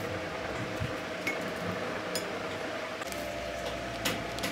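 A few light clinks and clicks as loose excavator brake parts are handled on a cluttered workbench, the sharpest about four seconds in, over a faint steady hum.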